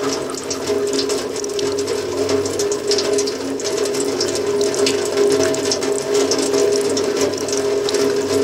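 A steady drone of a few held low tones, with dry, irregular clicking and rattling over it.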